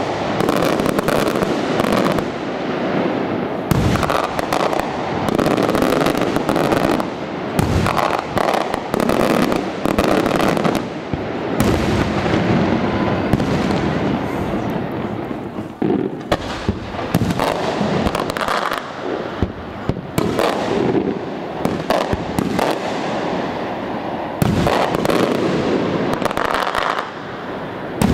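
Multibreak aerial firework shells bursting one after another in a dense, near-continuous barrage of bangs and crackling.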